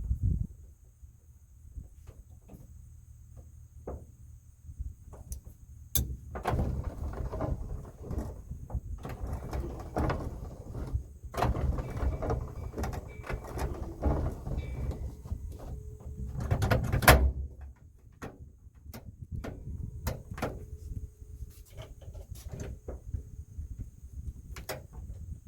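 Handling noise from work on a pickup truck's door: scattered clicks and knocks with a long stretch of rustling and scraping, and a sharper, louder knock about 17 seconds in.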